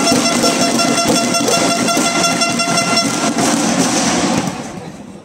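A horn blown by spectators in one long steady note, which stops about three seconds in, over loud crowd noise that dies away near the end.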